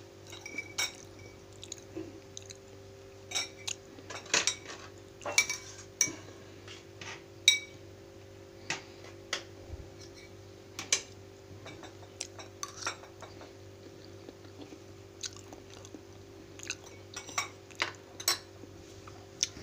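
Metal spoons and forks clinking and scraping against ceramic plates as food is scooped up and eaten: scattered sharp clicks, a few at a time. A steady low hum runs underneath.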